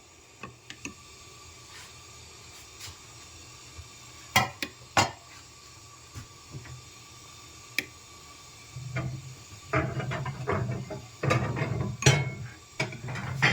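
Dishes and utensils clinking and knocking in a kitchen: a few sharp knocks about four to five seconds in, then busier clattering from about nine seconds in.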